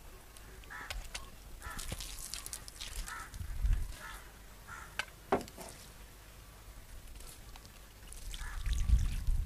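Short animal calls, like fowl, repeated every half second or so, with a few sharp clicks and a low rumble near the end.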